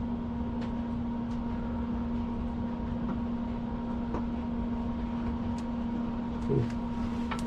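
Steady mechanical hum with an even hiss and a few faint clicks.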